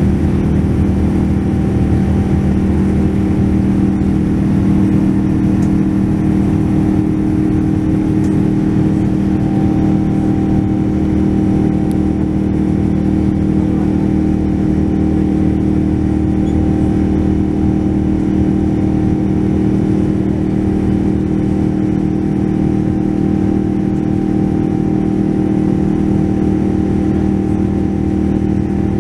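Rolls-Royce Trent 1000 turbofan engine of a Boeing 787-9 heard from inside the cabin during climb-out: a loud, steady drone with low hum tones and a thinner whine that grows clearer about ten seconds in, as power is cut back from takeoff thrust.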